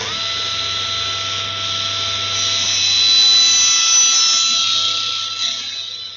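Table saw running with a steady whine, its blade cutting through a wooden plank on a miter. The sound swells in the middle of the cut and eases off near the end as the cut finishes, the motor still spinning.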